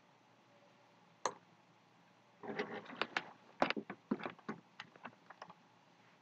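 Clicks at a computer keyboard and mouse: one sharp click about a second in, then an irregular run of about a dozen quick clicks over the next three seconds.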